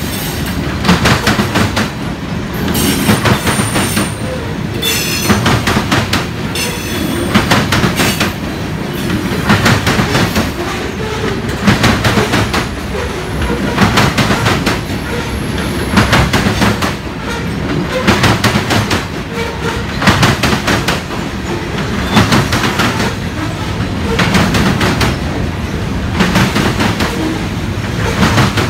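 Freight train of covered grain hopper cars rolling past: steel wheels rumbling and clicking over the rail joints in clusters about every two seconds as each car's wheel sets go by. A thin, high wheel squeal sounds briefly a few seconds in.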